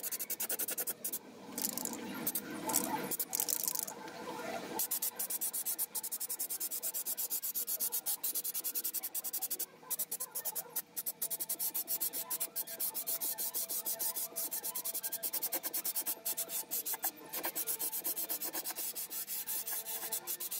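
Aerosol can of undercoating spraying onto sheet-metal truck floor pans: a steady hiss, broken by a few short pauses where the nozzle is released. For the first few seconds a lower rushing noise sits under the hiss.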